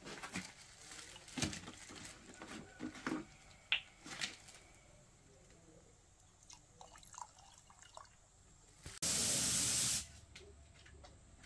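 Faint scattered drips and small clicks, then a loud hiss of spray lasting about a second, about nine seconds in.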